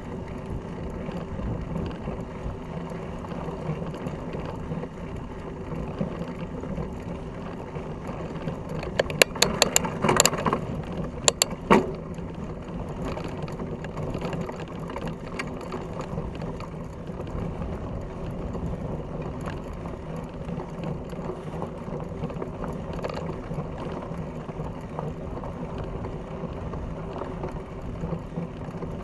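Fat bike rolling along a dirt track: a steady rumble of its wide knobby tyres with a faint hum. A cluster of sharp rattling knocks comes about nine to twelve seconds in, as the bike jolts over rough, stony ground.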